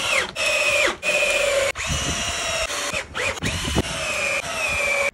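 Cordless drill working into pallet wood in about six short runs of a steady motor whine. Each run falls in pitch as it stops.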